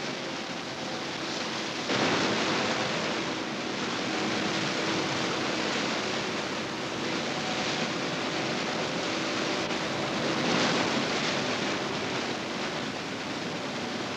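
Motorboat running on open water: a steady rushing noise of engine and water with a faint hum, which gets louder about two seconds in.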